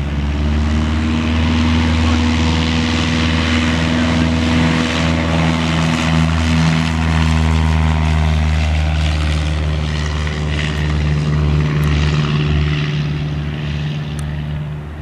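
Cessna 172S Skyhawk SP's four-cylinder Lycoming engine and two-blade propeller at full takeoff power on the takeoff roll: a loud, steady propeller drone. It swells as the plane passes close by, its pitch drops slightly as it goes past, and it fades near the end.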